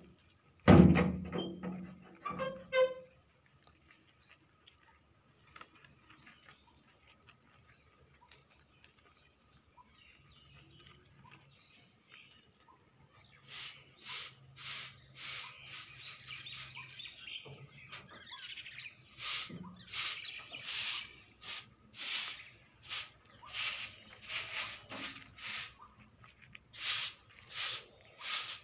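Rabbits feeding from a crate of leafy greens: leaves and stems rustling and crunching in quick, irregular bursts that build up from about halfway through. A loud thump about a second in.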